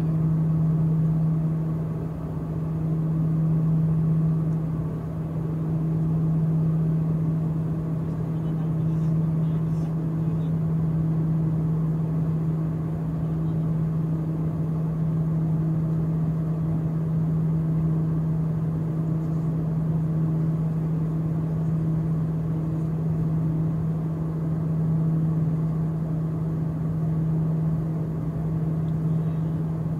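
Cabin noise of a small turboprop aircraft in flight, heard from inside the passenger cabin: a steady, loud propeller and engine drone with a strong low hum over a constant rumble.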